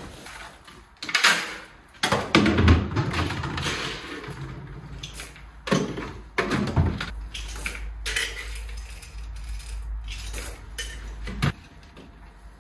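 Horse feed being scooped out of a plastic barrel into a plastic feed bowl: irregular rustling, knocks and clatters of plastic handling.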